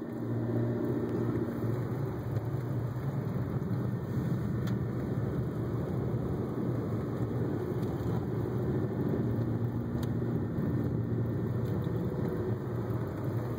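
Car driving on a snow-packed road, heard from inside the cabin: a steady low rumble of engine and tyres.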